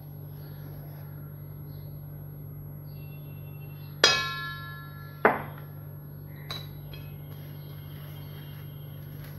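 A metal spoon strikes a stainless steel mixing bowl about four seconds in, and the bowl rings and fades. A second knock follows a second later and a faint tick after it, over a steady low hum.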